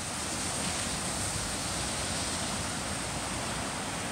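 Muddy floodwater rushing and churning over rocks in a swollen drainage channel, a steady, unbroken wash of water noise.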